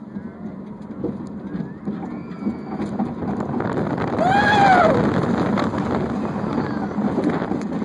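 Wind rush and rumble of a steel roller coaster train running down its first drop, growing louder as it picks up speed. About four and a half seconds in, a rider gives one short yell that rises and falls in pitch.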